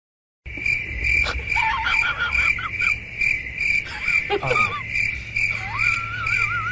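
A steady high chirping that pulses about two to three times a second, like a chorus of calling insects, starting about half a second in. Short wavering calls rise and fall over it around the middle, and a longer warbling call comes near the end.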